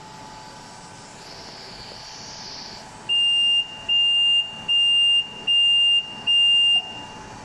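ZM R730A BGA rework station's buzzer beeping five times, each high-pitched beep about half a second long and evenly spaced. A soft hiss swells just before the beeps, over a steady background hum.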